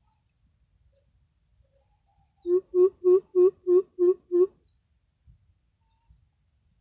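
Coucal call: a run of seven deep, evenly spaced hoots, about three a second, beginning a couple of seconds in. A faint steady insect buzz sounds high up behind it.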